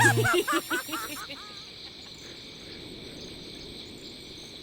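A quick run of short rising chirps that fades out over the first second and a half, then a steady night-time chorus of crickets.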